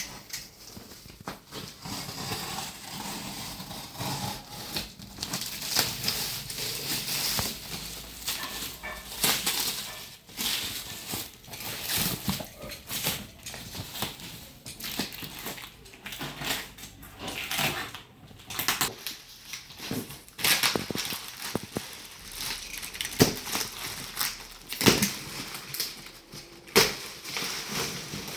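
Monitor packaging being handled and opened: irregular rustling, crinkling and knocks of cardboard and plastic wrap.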